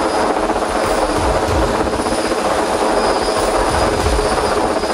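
Helicopter hovering close overhead and holding its load steady, the rotor beating low under a steady high whine.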